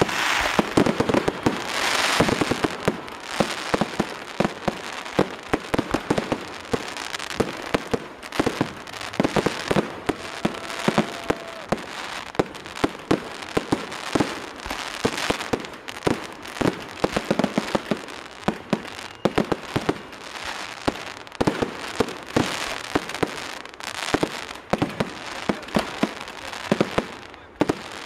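Fireworks display: a dense, continuous run of sharp bangs and crackling pops, heaviest in the first few seconds.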